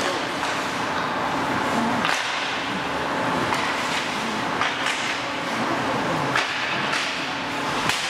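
Ice hockey play in a rink: a steady scrape of skates on the ice, with sharp cracks of sticks striking the puck or ice every second or so.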